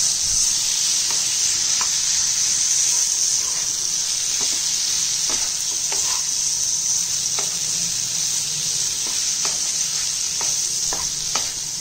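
Mutton liver pieces frying in oil with an onion masala in a non-stick kadai, sizzling steadily, while a wooden spatula stirs them and knocks and scrapes against the pan now and then.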